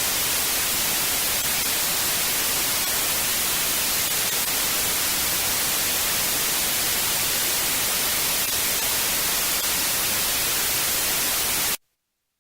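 Steady static hiss, an even white-noise rush like a dead broadcast channel, that cuts off suddenly into silence near the end.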